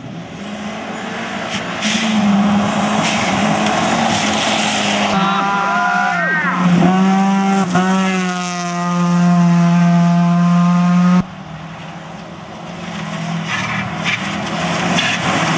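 Rally cars at speed on a gravel stage, engine and gravel noise. From about five seconds in, a Mazda RX-7's rotary engine revs hard, shifts up twice and holds high revs, until it cuts off suddenly about eleven seconds in. Another engine then builds again.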